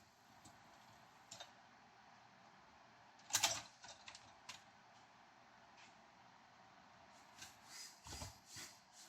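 Mostly quiet, with a few faint clicks and knocks: one louder knock about three and a half seconds in and a couple of small ones near the end.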